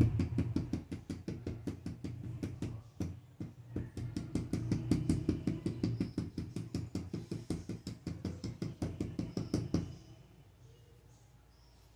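Rapid, regular clicking and knocking, about seven clicks a second, over a low hum, from a plastic toner cartridge being worked by hand; it stops abruptly about ten seconds in.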